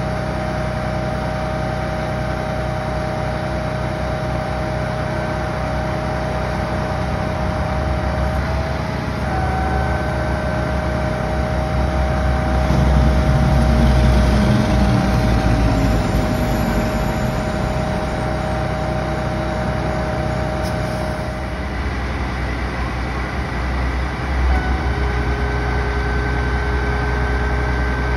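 Boom truck's engine running under load while the truck-mounted hydraulic crane works, with steady whining tones that shift pitch a few times as the boom is moved. Near the middle a lower tone sweeps down.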